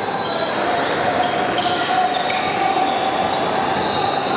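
Basketball game sounds echoing in a large gymnasium: a ball bouncing on the hardwood court, with a sharp knock about a second and a half in, over the steady hubbub of players and spectators.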